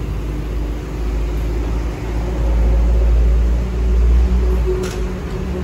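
Petrol-pump dispenser running and fuel flowing through the nozzle into a car's tank as it is topped up after the automatic cut-off: a steady hum with a low rumble that swells in the middle, and one short click near the end.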